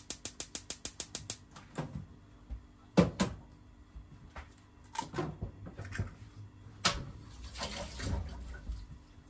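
Gas stove igniter clicking rapidly, about eight clicks a second, for the first second and a half as the burner is lit. After that come scattered sharp knocks and kitchen clatter, the loudest about three seconds in.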